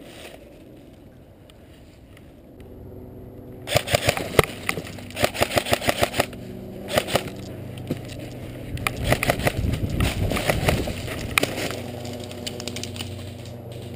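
Airsoft guns firing in an exchange of shots: clusters of sharp cracks, including a rapid run of about six a second, with a steady low hum underneath.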